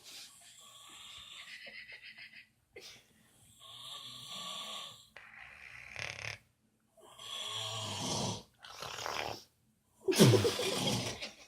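Snoring: about six rasping breaths in and out, each a second or two long, with short pauses between them. The loudest comes near the end.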